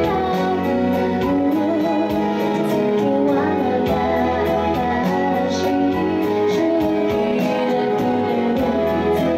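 A woman singing live into a handheld microphone over backing music with a steady beat.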